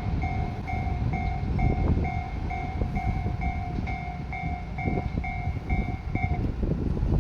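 Japanese railway level-crossing alarm ringing its electronic two-tone bell at about two strokes a second, cutting off about six seconds in as the crossing clears behind the passing train. A low rumble of the passing train runs underneath.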